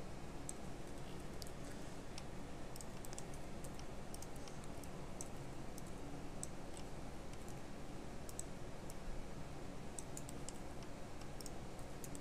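Light, irregular clicking of a computer mouse and keyboard, over a steady low hum.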